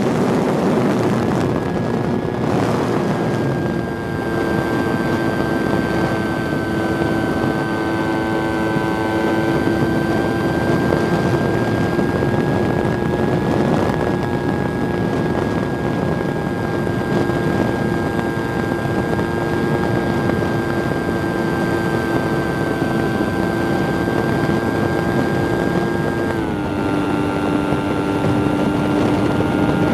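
Onboard sound of a radio-controlled 3D aerobatic plane in flight: the motor and propeller whine steadily over wind rushing across the microphone. About 26 seconds in, the whine steps down slightly in pitch.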